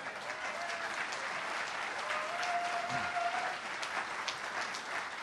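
Audience applauding, a steady patter of many hands clapping in a large hall.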